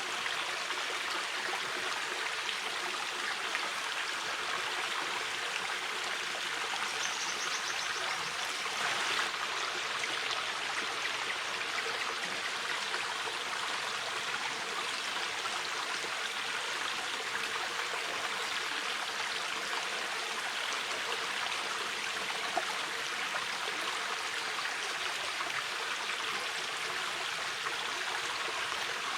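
A shallow river flowing steadily, its water rushing and babbling without a break.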